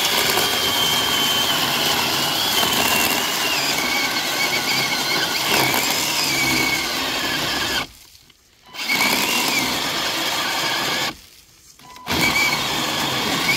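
Greenworks 40-volt 12-inch cordless electric chainsaw, with a new chain, cutting through a log. Its high motor whine drops in pitch as the chain bites into the wood. It runs for about eight seconds, stops for about a second, runs about two seconds more, stops again, then starts once more near the end.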